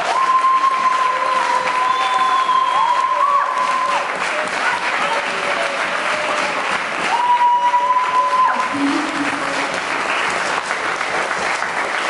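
Audience applauding steadily as a prize winner walks up to the stage. Long, high held notes sound over the clapping during the first four seconds or so, and again about seven seconds in.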